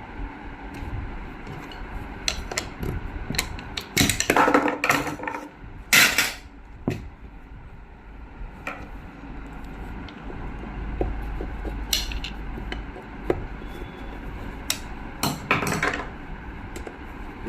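Hand tools and metal sewing-machine parts clicking and knocking, with short scraping, rattling bursts a few seconds in, about midway and near the end, over a steady low hum.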